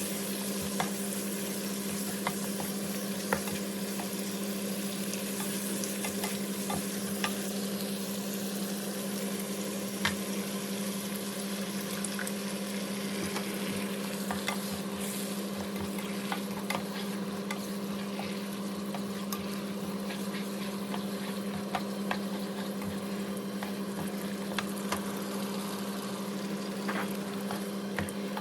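Food frying and sizzling in a pan while being stirred, with scattered clicks of a utensil against the pan, over a steady low hum.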